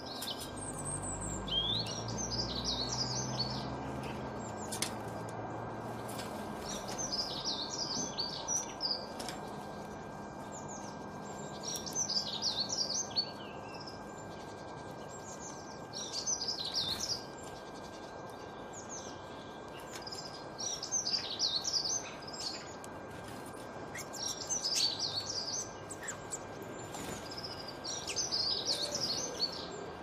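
A songbird singing short, quick twittering phrases, one about every four seconds, over steady outdoor background noise. A low rumble fades out in the first few seconds.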